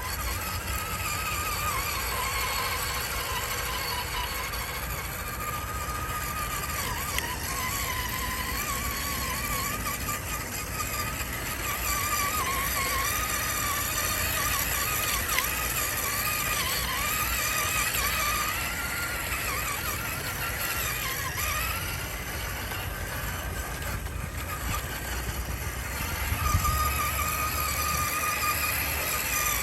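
Electric motor and gear train of an RC4WD Gelande II D90 scale crawler truck whining as it drives, the pitch wavering up and down with the throttle.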